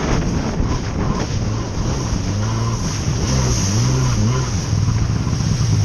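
Yamaha SuperJet stand-up jet ski engine running hard, its pitch rising and falling as the throttle changes over the chop, with rushing water and wind noise.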